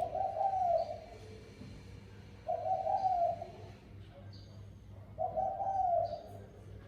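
Spotted dove cooing: three low coos of about a second each, spaced about two and a half seconds apart.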